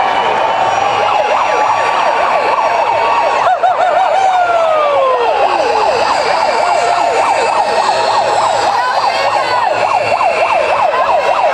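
A siren sounding: many quick rising-and-falling sweeps over a steady high tone, with a couple of long falling glides about four to six seconds in.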